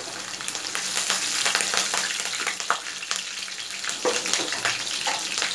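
Sliced green chillies, garlic and onion sizzling in hot oil in a kadhai: a steady hiss thick with small crackling pops.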